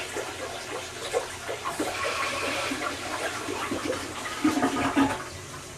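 Toilet flushing on a test after a tank rebuild: water rushes and gurgles down the bowl, ending in a louder gulp about five seconds in. It then settles to a quieter steady hiss as the tank refills.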